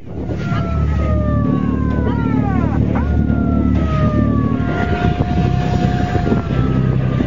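Patrol boat under way at speed: its engine runs steadily while a siren wails over it, the pitch sliding slowly down with a couple of quick up-and-down sweeps about three seconds in. Wind and water rush underneath.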